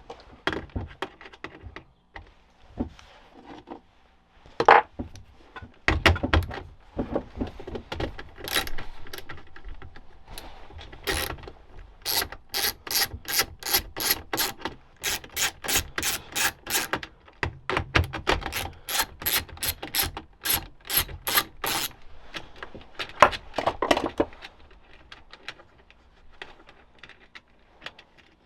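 Hand ratchet wrench clicking in a fast, even run of strokes lasting about ten seconds, with scattered tool knocks and clatter before and after it.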